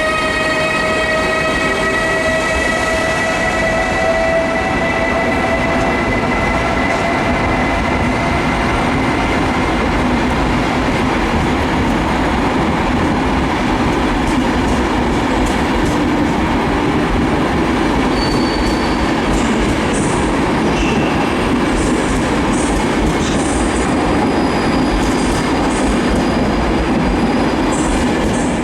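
EU44 Husarz (Siemens Taurus) electric locomotive passing with a train of intercity coaches. A whine of several stacked tones from its electric drive falls slowly in pitch and fades over the first ten seconds. Then the coaches roll by with steady wheel rumble and clatter, and short high wheel squeals come in the second half.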